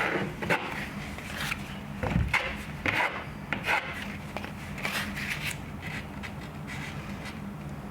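Drywall knife spreading joint compound over drywall tape: a string of short, irregular scraping strokes. A low steady hum runs underneath.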